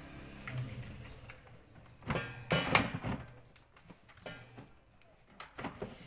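Plastic knocks and clatter as an air fryer's pot and basket are pushed and jiggled into the housing, loudest in a quick run of knocks about two to three seconds in, with a few lighter clicks later. The drawer is not fully latching.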